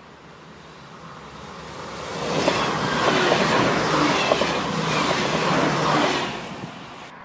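TER diesel railcar passing close by at speed. Its rumble builds as it approaches, then the wheels clatter sharply over the rails for about four seconds before it fades away.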